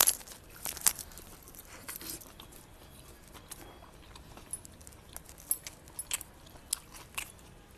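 A man eating: quiet chewing and mouth sounds with scattered small clicks and taps, more of them in the second half.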